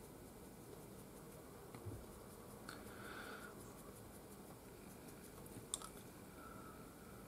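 Very quiet room tone with faint brush strokes of oil paint on a small resin figure bust, and two small clicks, the sharper one about two-thirds of the way through.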